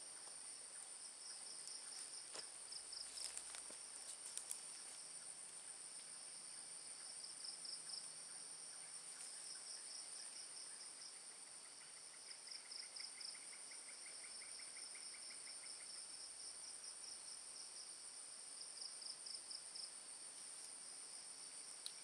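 A night chorus of insects: a steady, high-pitched shrill with pulsing cricket-like trills beneath it, and a lower pulsed trill partway through. A few faint clicks and knocks come in the first few seconds.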